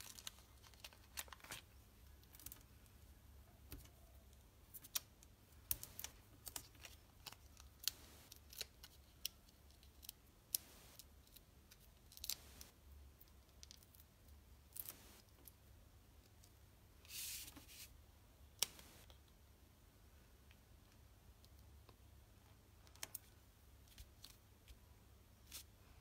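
Faint scattered clicks and rustles of hands handling card stock and peeling foam adhesive dimensionals off their backing sheet, with one longer rustle about 17 seconds in.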